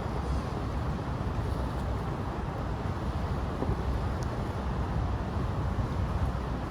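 Wind rumbling on the phone's microphone over a steady outdoor background hiss.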